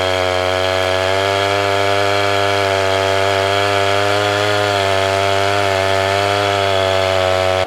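Husqvarna 445e two-stroke chainsaw running at steady high revs with its bar buried in a log, cutting. The pitch holds nearly steady with a slight waver.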